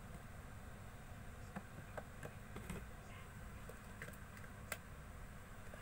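Faint, scattered clicks and taps of small plastic slime containers being handled and cleaned out, over a low steady background hum.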